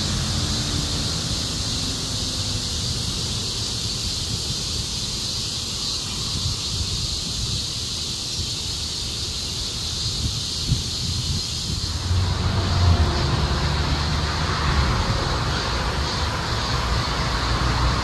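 Cicadas buzzing in a steady, high-pitched chorus, with a low rumble of street traffic underneath. About twelve seconds in the buzzing grows fuller and a little louder.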